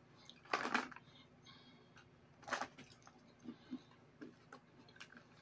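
A cardboard M&M's candy box being handled and its end flap worked open: two short rustling scrapes, about half a second and two and a half seconds in, then a few faint ticks and clicks.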